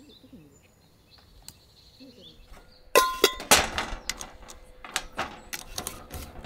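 Faint outdoor background, then about three seconds in a sudden run of loud, sharp clicks and clatter.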